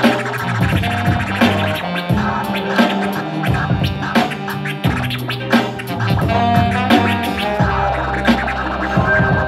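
Live hip hop band playing an instrumental passage: a drum beat and bass line, with a DJ scratching records on a turntable over it.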